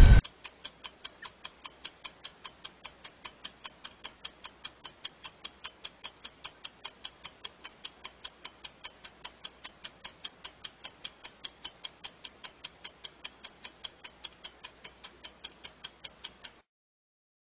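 A wristwatch ticking steadily, about four to five ticks a second in a louder-softer tick-tock pattern, stopping abruptly near the end.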